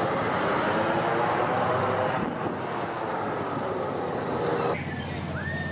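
Carnival thrill ride machinery running steadily with a hum while the ride's long arm swings. The sound changes abruptly about two seconds in and again near the end, where short rising-and-falling high tones come in.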